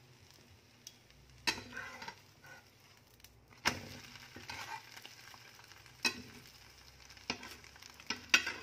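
A metal spatula clacking and scraping against a flat pan as an egg omelette with a slice of bread fries with a light sizzle. There are about six sharp clacks, the loudest about a second and a half in and just before four seconds in.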